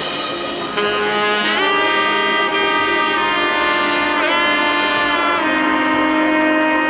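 Background music led by a saxophone-like horn playing long held notes, with a bend in pitch about four seconds in.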